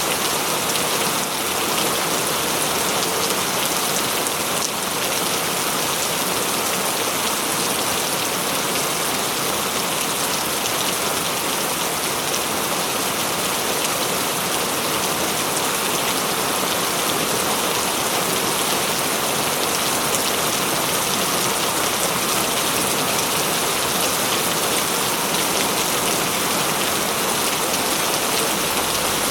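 Steady rain falling, a dense even patter of drops with no thunder.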